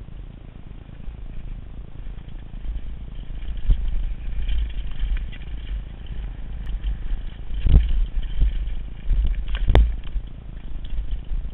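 Downhill mountain bike riding fast over a dirt trail, heard from a camera mounted on the bike: a steady low wind rumble on the microphone with the tyres rolling over dirt and the bike's parts rattling, and two sharp knocks in the second half as the wheels hit bumps or rocks.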